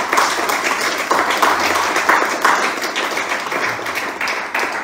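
Audience applauding, with dense clapping that begins to fade near the end.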